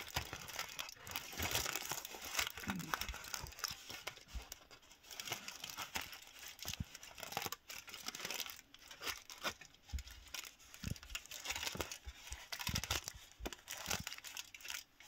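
Crumpled aluminum foil handled by fingers close to the microphone, crinkling and crackling irregularly.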